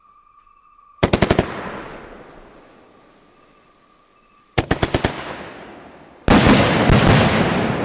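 Pro Set 2 25-shot, 200-gram firework cake firing. A quick volley of about five sharp bangs about a second in, a second volley a few seconds later, then a louder, denser run of bangs near the end, each volley trailing off in a long echo.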